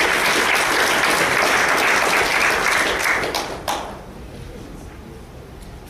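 Audience applauding, a dense patter of many hands clapping that dies away with a few last claps about four seconds in.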